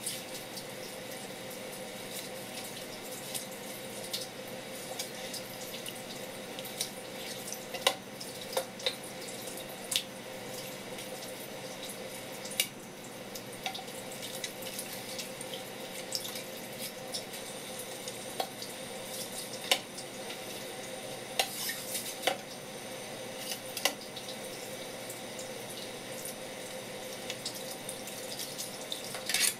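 A thin stream of tap water runs steadily onto a wooden cutting board. Scattered sharp taps come from the knife and fish being handled on the board.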